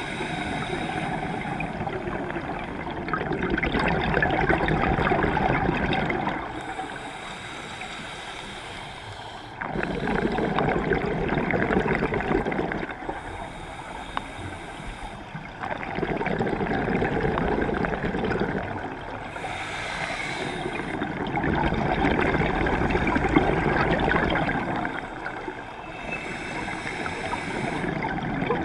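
Scuba breathing through a demand regulator, heard underwater: a quiet hissing inhale, then a few seconds of bubbling exhaust. The cycle repeats about every six seconds.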